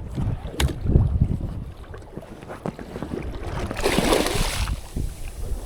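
Wind buffeting the microphone over the low, uneven rumble of a small boat on choppy water, with a few sharp clicks and a brief hissing rush about four seconds in.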